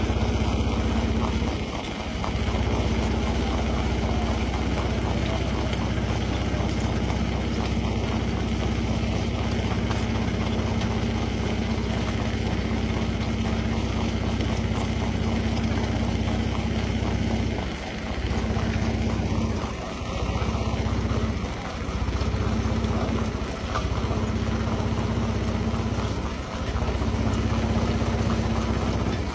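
Stone crusher machinery running, a steady low engine drone, with brief dips several times in the second half.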